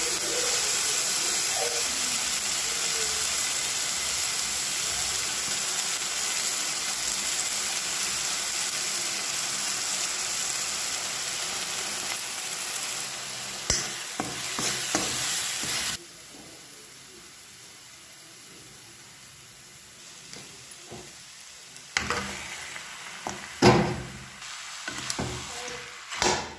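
Onions and spices frying in hot oil in a kadai: a loud steady sizzle that drops suddenly to a low hiss a little past halfway. Near the end a metal spoon scrapes and knocks against the pan a few times as mutton pieces are stirred.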